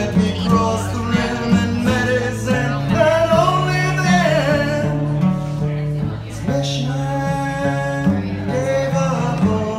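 A man singing with guitar accompaniment, holding long wavering notes in a slow song.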